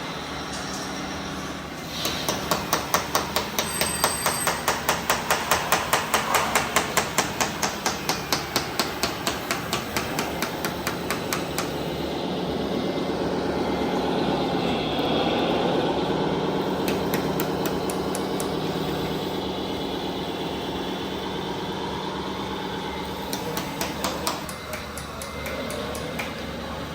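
Radio-controlled construction machinery: a rapid, even hammering at about three knocks a second for roughly ten seconds, then a steady electric-hydraulic motor hum whose pitch dips and rises once, with a few scattered knocks near the end.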